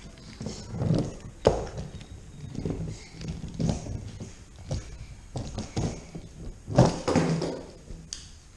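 Irregular knocks and thuds, a toy monster truck bumping and landing on a wooden play track. Two knocks, about 1.5 s and 7 s in, are louder than the rest.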